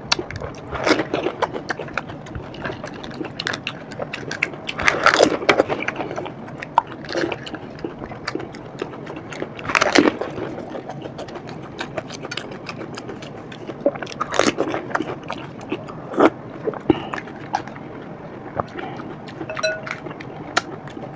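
Eating pani puri: crisp puri shells cracking and being chewed, an irregular run of crunches and clicks with a few louder crunches spread through.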